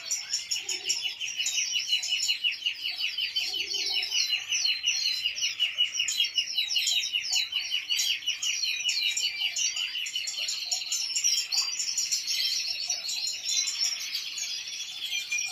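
European goldfinches singing together: a dense, rapid twittering with a fast, even trill underneath that runs through most of it.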